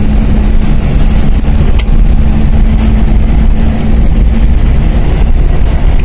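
Car driving in strong wind: a heavy, steady low rumble of wind and road noise, with an even hum that fades out about five seconds in.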